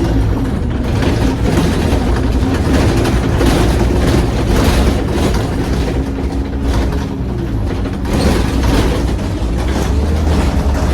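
Single-decker service bus's diesel engine and drivetrain running as the bus drives along, heard from inside the saloon, with road noise and rattles over the surface.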